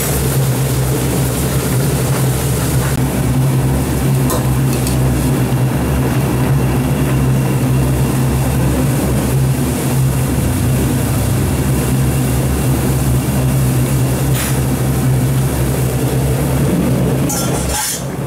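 Spicy rockfish stew boiling hard in a wok on a gas burner, over a steady low mechanical hum. A few light clicks come through, and there is a brief clatter near the end.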